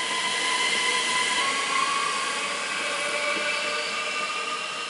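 ÖBB Cityjet (Siemens Desiro ML) electric multiple unit running past with a whine of several steady tones over a hiss of running noise. One tone rises slightly, and the sound fades near the end as the train moves away.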